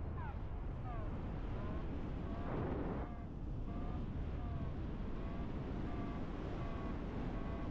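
A paragliding variometer beeping in short tones, a few a second, its pitch stepping and sliding up and down as it signals lift. Under the beeps, wind rushes over the microphone in flight, with a stronger gust about two and a half seconds in.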